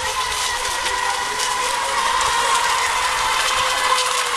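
Electric motors of several ECO Expert class RC racing boats whining as they run flat out, a high, fairly steady whine over a hiss.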